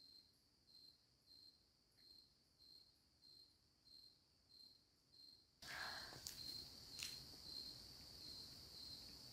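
Faint cricket chirping, evenly spaced at about one and a half short chirps a second, all at one high pitch. About five and a half seconds in, a louder rustling hiss with a couple of clicks comes in under the chirping.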